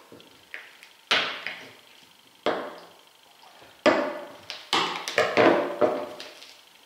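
Sharp knocks of hand tools working at the steel bead of a large truck tyre as its rubber is cut and stripped down to the bead wire. A series of separate strikes, each ringing out briefly, coming faster near the end.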